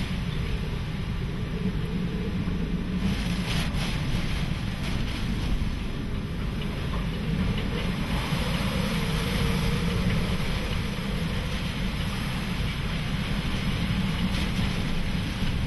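Hurricane-force wind blowing steadily with driving rain, buffeting the microphone with a heavy low rumble.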